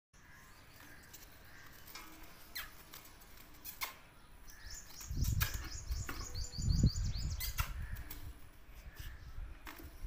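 A robin trapped in a pedestal fan's wire guard gives a rapid run of chirps about halfway through. It flutters, and there are sharp knocks and heavy thumping against the metal cage as it is handled.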